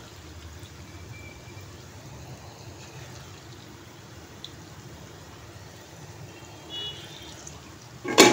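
Moong dal pakodas deep-frying in hot oil in a kadhai: a steady sizzle of bubbling oil, with one sharp knock near the end.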